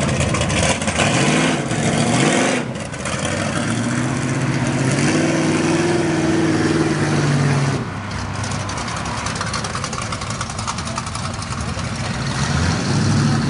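Off-road truck engines revving and pulling under load as a lifted black Jeep crawls up a pile of boulders. The engine note climbs in the first couple of seconds, holds steady for a few seconds, then drops off sharply about eight seconds in, and comes back near the end.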